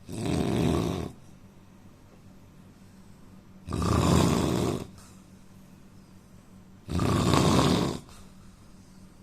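A man snoring in his sleep: three loud, rasping snores, each about a second long, coming evenly about every three seconds.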